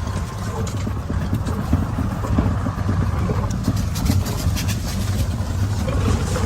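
Car running slowly with a steady low engine rumble, with scattered knocks and rattles from the body.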